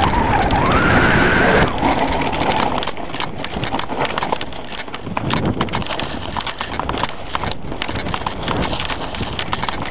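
Mountain bike rattling down a rough enduro trail, its disc brakes squealing with a rising whine for the first second and a half, then chain and frame clattering over rocks.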